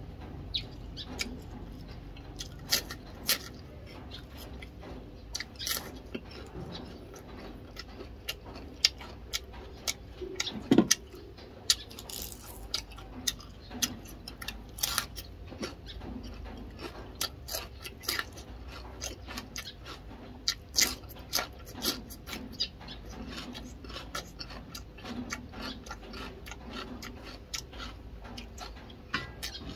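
A person eating fish and raw vegetables close to the microphone: chewing with wet mouth clicks and smacks, irregular and several a second, with a few louder crunches.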